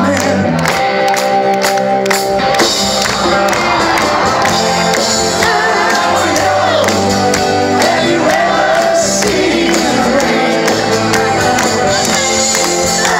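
Rock band playing live through a PA with a lead vocal singing, heard from within the audience.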